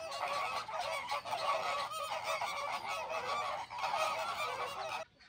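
A flock of birds calling, many short calls overlapping at once; the sound cuts off suddenly near the end.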